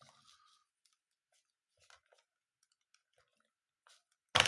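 Handling of a compact film camera: mostly quiet, with faint scattered clicks and one short, sharp knock near the end.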